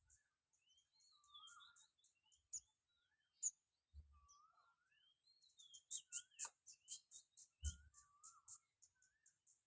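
Birds singing faintly: short, varied whistled phrases that rise and fall, over a rapid series of high chirps at about five a second that grows louder in the second half. A few brief low thumps are heard.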